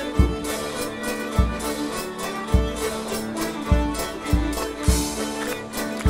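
English country dance band playing a reel live: fiddle, melodeon, banjo and bass saxophone over a drum kit, with a kick drum thumping about once a second.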